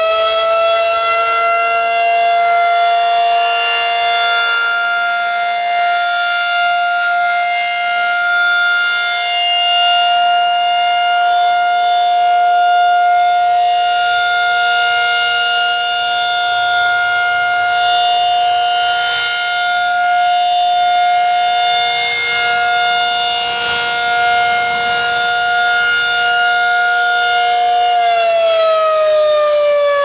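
Federal Signal 2001-SRN rotating electromechanical siren sounding its steady single tone for a test. It finishes climbing to full pitch in the first couple of seconds, holds that pitch, and starts to wind down near the end.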